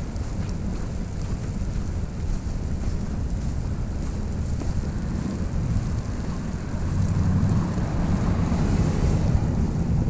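Snowstorm wind gusting over the microphone: a steady low rumble with a fainter hiss above it, swelling louder about seven seconds in.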